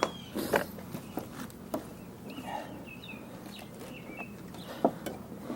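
A few sharp knocks and clicks of metal parts as a snowblower drive belt is worked by hand past the idler arms and onto the pulley, the loudest knock near the end, with short high chirps in between.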